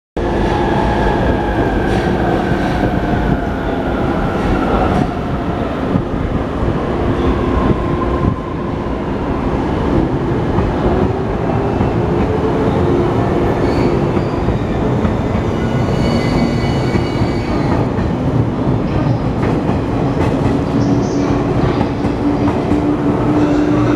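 JR 185 series electric multiple unit pulling out of the platform and picking up speed: a loud, steady rumble of wheels and running gear, with whining tones that slide in pitch as it gathers pace.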